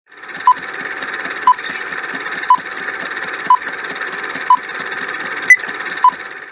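Quiz countdown timer sound effect: a fast steady ticking over a buzz, with a short beep about once a second and a sharper, louder click near the end, cutting off abruptly when time runs out.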